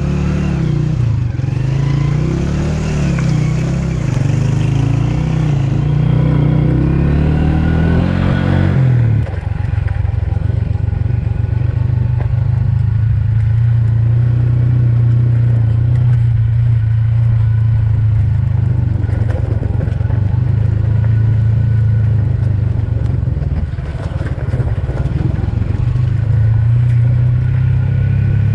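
Motorcycle engine under way: for about the first nine seconds its pitch rises and falls with the throttle, then it holds a steady cruise.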